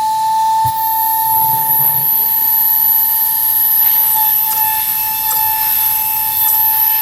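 CNC router spindle running at a steady speed after spinning up, a steady high-pitched whine, with a second, much higher whistle coming in about a second in.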